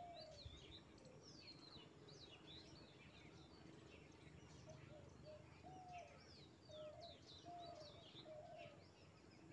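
Faint birdsong: many small birds chirping with quick, high, sweeping notes throughout, joined about halfway through by a lower call repeated every second or so, over a soft outdoor background noise.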